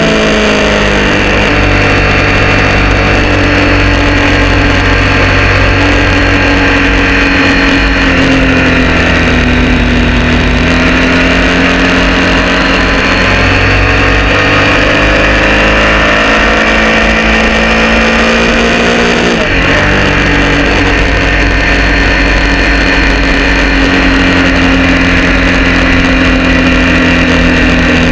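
Triumph Street Triple R 675's inline three-cylinder engine running hard on track through Arrows exhausts with the baffles removed, heard from on board over wind noise. The engine pitch rises and falls slowly through the corners, with a sudden break and step in pitch about two-thirds of the way in as the quickshifter changes up a gear.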